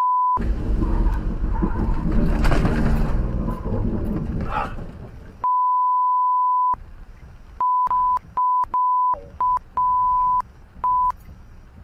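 A steady high-pitched censor bleep, repeated: a short one at the start, a long one about halfway, then a quick string of short ones near the end, each blanking out all other sound. Between the bleeps is the noise of a car driving on a wet road in rain.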